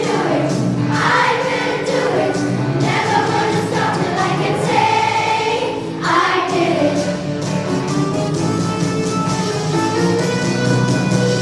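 A group of voices singing a song together over musical accompaniment, the sung notes held and changing every second or so.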